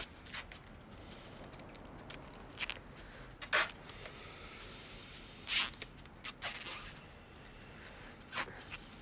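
Adhesive tape being pulled off the roll and wrapped on, in about half a dozen short rasping pulls.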